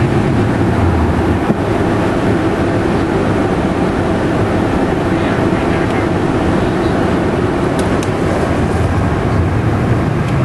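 Steady in-flight noise in the cockpit of a Cessna Citation V Ultra business jet: airflow and the drone of its twin turbofan engines, heaviest in the low range.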